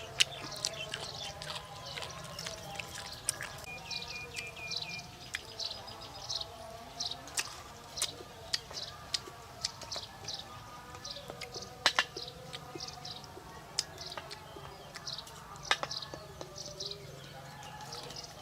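Small birds chirping over and over in short high notes, with a brief whistled note about four seconds in, among scattered sharp clicks and cracks.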